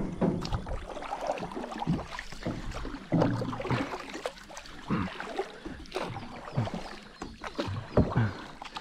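Water splashing and lapping around a plastic fishing kayak, with irregular knocks on the hull, as a hooked pirarucu pulls on the line.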